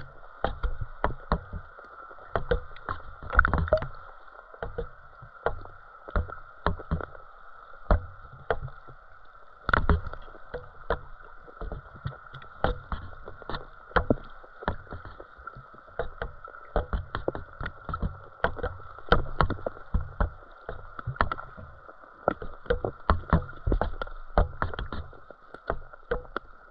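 Underwater sound through a GoPro's waterproof housing: frequent, irregular sharp clicks and knocks, several a second, over a faint steady high hum.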